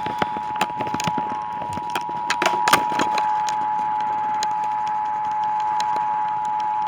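Emergency Alert System attention signal: two steady tones sounding together without a break, heard over AM news radio. Crackling clicks of static break over it during the first three seconds.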